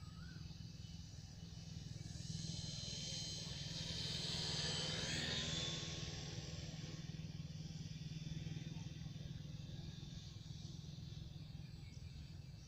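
Art-Tech Cessna 182 RC model plane's electric motor and propeller whining as it flies past, swelling over a few seconds and dropping in pitch about five and a half seconds in as it passes, then fading, over a steady low rumble.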